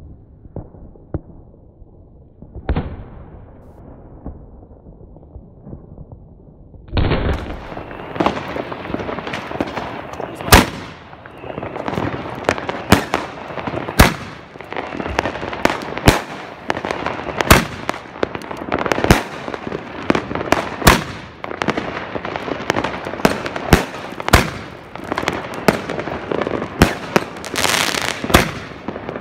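New Year's Eve fireworks: a single bang about three seconds in, then from about seven seconds a dense, continuous crackle of fireworks with loud sharp bangs roughly every second.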